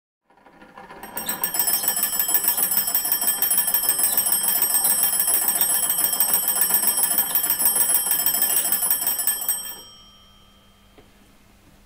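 The two bell gongs of an antique wooden magneto telephone ringing in a fast continuous trill as the hand crank is turned. The ringing builds up over about a second, holds steady, then stops near the end and fades out.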